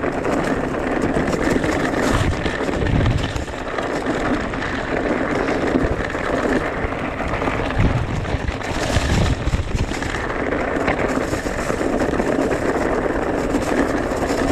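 Riding noise from an e-mountain bike on a trail: steady rushing air on the microphone with irregular low rumbles, plus knocks and rattle from the bike over the rough ground.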